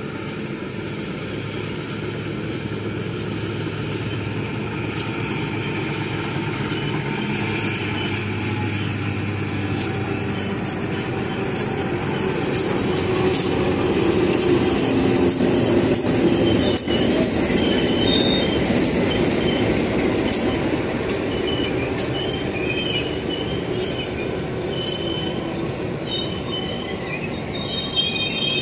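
Diesel locomotive hauling a freight train of cargo wagons passing close by: the engine running as it approaches, loudest as the locomotive goes past about halfway through, then the wagons rolling by with short, high wheel squeals.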